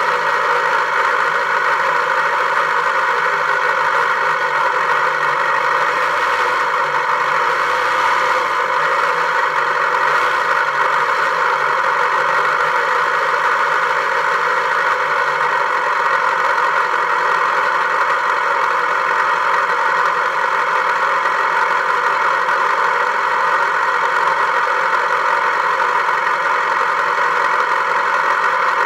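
Steady vehicle engine noise, unchanging in pitch and level.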